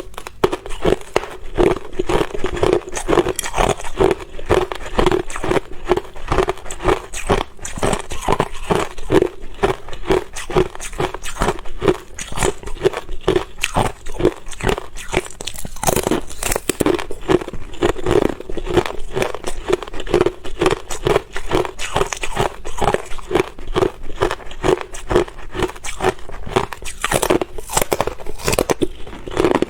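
Ice being bitten and chewed close up: a continuous run of rapid, crackling crunches.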